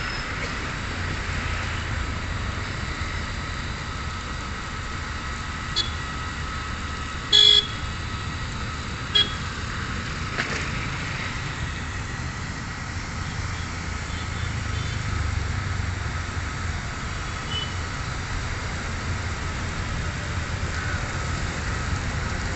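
Steady traffic rumble with a thin high tone running through it, and three short vehicle horn toots about six, seven and a half and nine seconds in; the middle toot is the loudest.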